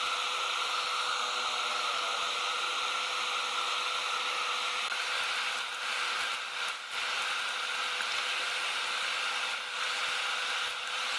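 A steady, unchanging mechanical hiss with a faint hum, and a few faint soft knocks about two-thirds of the way through.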